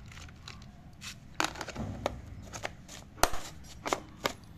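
A series of sharp plastic clicks and taps from a hand handling a clear plastic storage box of amplifier boards and ribbon cables and closing its lid. The loudest clicks come about one and a half and three seconds in.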